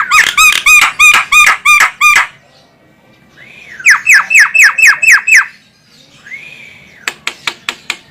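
Javan myna (jalak kebo) calling: two runs of rapid, harsh repeated notes, about four a second, then a single rising-and-falling note and a quick series of sharp clicks near the end.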